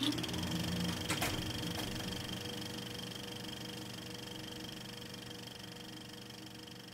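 Logo sting for an animated end card: a short rising sweep, a sharp hit about a second in, then a held chord of steady tones that slowly fades away.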